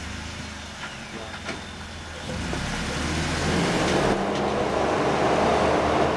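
Off-road 4x4's engine running low and steady, then pulling harder under load from about two seconds in and growing louder as the vehicle drives onto a trail obstacle.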